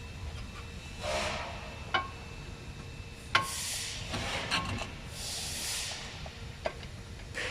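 An aerosol can of copper grease sprayed onto a suspension thread in several short hissing bursts, with a few sharp metallic clicks between them.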